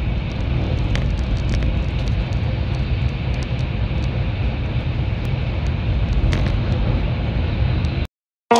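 Electric train running, heard from inside the carriage: a steady low rumble with faint scattered clicks, which cuts off abruptly near the end.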